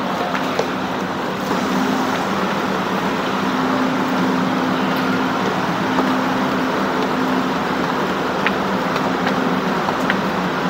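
Steady rumble of a busy railway station, with a low hum that drops in and out and a few faint ticks.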